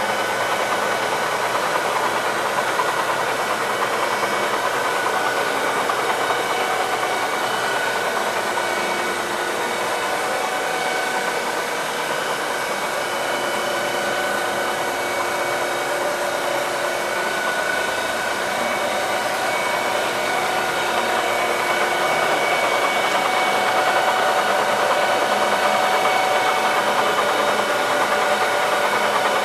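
Giddings & Lewis 65-C5-F floor-type horizontal boring mill running: a steady mechanical whine of motors and drives with several held tones over a rushing noise, growing slightly louder near the end.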